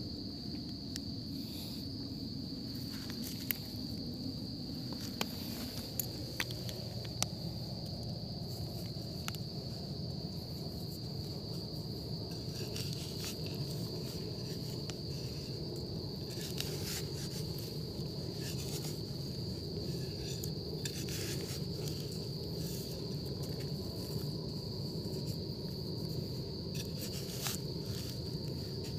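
A steady high chirring of insects, one unbroken note throughout. Over it come scattered short scrapes and rustles of fingers scratching through dry soil and fallen leaves, a few sharper clicks between about three and seven seconds in.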